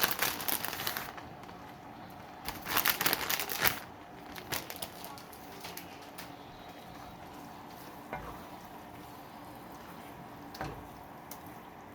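A plastic bag of shredded cheese crinkling in two bursts in the first four seconds, then a quiet, steady sizzle from the pan of seafood pasta sauce, with a few light clicks.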